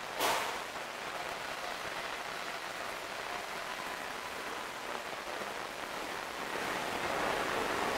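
Steady hissing ambience of a subway station passageway, with a single sharp clack about a quarter second in; the noise grows louder near the end.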